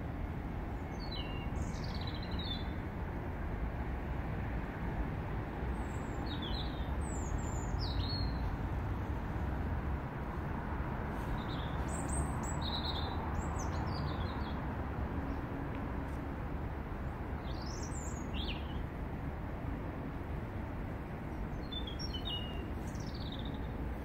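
European robin singing: five short phrases of high, thin, warbling notes, each separated by a pause of a few seconds, over a steady low background rumble of the city.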